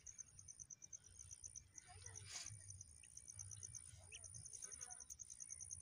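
Faint, rapid high-pitched pulsing chirp of insects, even and unbroken, over a near-silent lakeside background.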